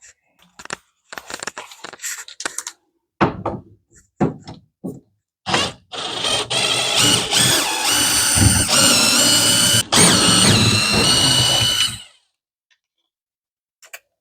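Power drill-driver running in two spells with a whine that steps up and down in pitch as the trigger is worked, after a few seconds of light clicks and knocks; it is backing out the screws holding the main breaker panel's cover.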